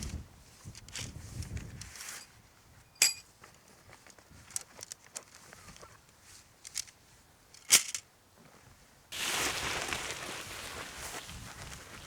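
Camping gear handled while pitching a tent: scattered sharp clicks and clinks, the loudest about three seconds in (ringing and metallic) and about eight seconds in, then a loud, sudden rustle from about nine seconds on.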